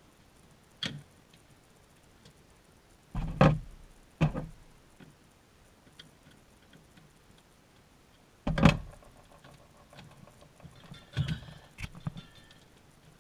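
A handful of separate knocks and clunks, the loudest about three and a half and eight and a half seconds in, with a few lighter rattling knocks near the end.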